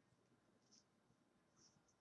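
Near silence, with faint soft swishes of hockey trading cards being slid and handled, twice.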